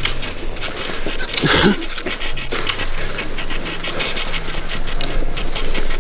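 Husky panting rapidly and rhythmically while pulling on the trail.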